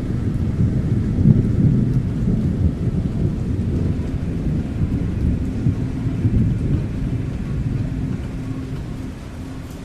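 Dark ambience of a deep, uneven thunder-like rumble over a faint rain-like hiss, easing off near the end. A low steady hum comes in about two-thirds of the way through.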